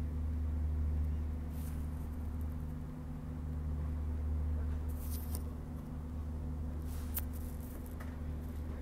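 Steady low drone of a boat's diesel engine, even throughout, with a few short high squeaks over it.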